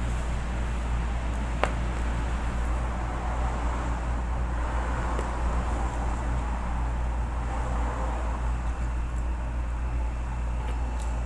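Steady low hum and hiss of background noise, with one sharp click about one and a half seconds in.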